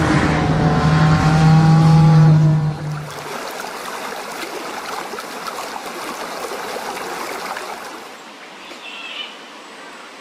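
A car driving at speed, its engine holding a steady note with road noise, for about three seconds. Then it cuts abruptly to the rushing of a rocky mountain stream, which grows quieter near the end.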